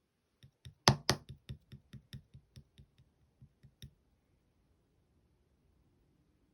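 Green clear slime being pressed and poked with the fingers, making a quick run of crisp clicking pops, about four or five a second, the first few loudest, stopping about four seconds in.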